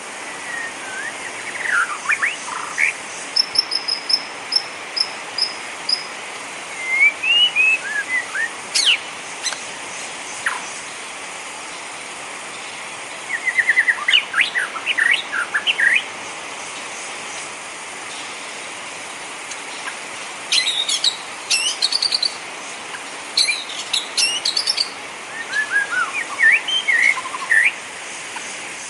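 Steady rain hiss with songbirds chirping and whistling over it in short bursts of quick notes and trills, with gaps of a few seconds between them.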